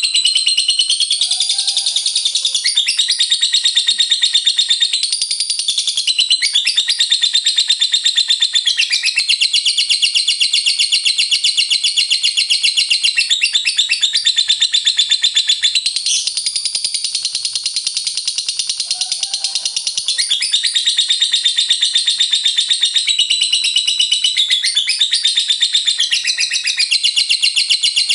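Lovebird in 'ngekek' song: a long, unbroken, rapid high-pitched chattering trill that shifts its pattern every few seconds.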